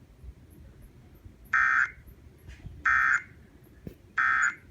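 Emergency Alert System SAME end-of-message code: three short buzzing digital data bursts about 1.3 seconds apart, which signal that the alert has ended.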